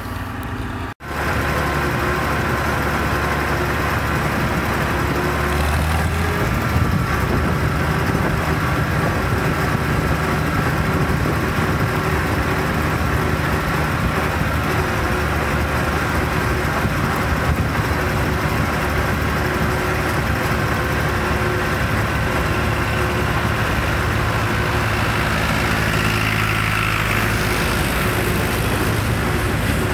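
Older tractor's engine running steadily while under way, heard from the driver's seat close behind its upright exhaust stack. The sound breaks off briefly about a second in, then carries on evenly.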